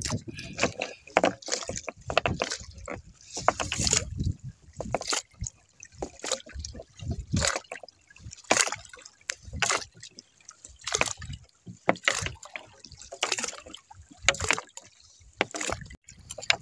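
Fishing net being paid out by hand over the side of an outrigger boat into the sea: irregular splashes and knocks as the net slides over the gunwale and drops into the water, with water trickling and sloshing.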